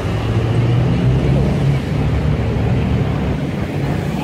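Road traffic: car engines running at low revs, a steady low drone with slight shifts in pitch as vehicles move through a junction.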